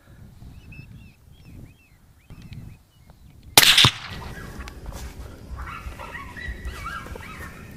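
A single loud rifle shot about three and a half seconds in, followed by the hit coyote yelping and whining in short, wavering high cries.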